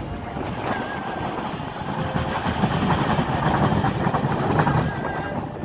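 Passenger train running along the track, heard from an open carriage window: a steady rush of wheel and track noise that swells in the middle.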